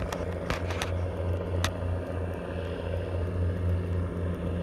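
A steady low engine drone, with a few light clicks in the first two seconds.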